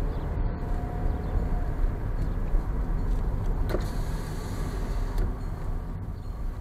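Car driving slowly on a rough country road, its engine and tyre rumble heard from inside the cabin.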